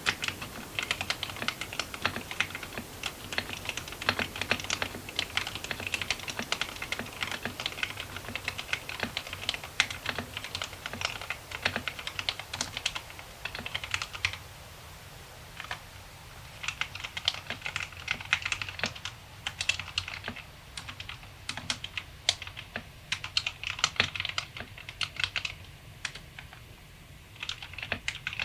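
Typing on a Drop Alt 65% mechanical keyboard with Kailh Speed Silver linear switches: rapid, dense keystroke clicks in runs, broken by brief pauses about halfway through and again later on.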